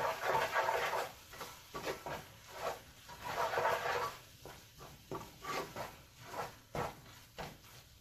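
Wooden spoon stirring and scraping chopped onions around a metal pot, a run of uneven scraping strokes with a few sharper knocks of the spoon on the pan.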